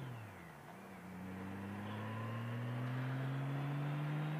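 Motorcycle engine under way: its pitch drops sharply with a gear change about half a second in, then climbs steadily as the bike accelerates in the next gear.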